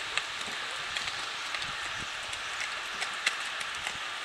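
Quarter Horse gelding's hooves clopping on a gravel road at a walk: scattered, uneven steps over a steady background hiss.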